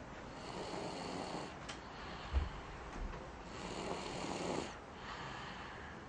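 A young boy snoring in his sleep: two slow, drawn-out snoring breaths about three seconds apart, with a short low thump between them.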